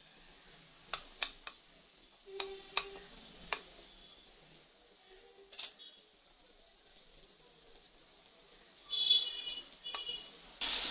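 Butter melting in a hot pan with a faint sizzle, broken by several sharp clicks and taps. Near the end a much louder frying sizzle starts.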